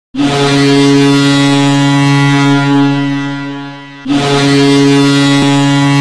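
Ice hockey arena goal horn: a low-pitched, ship-like horn sounds two long blasts. The first fades out over its last second, and the second starts about four seconds in.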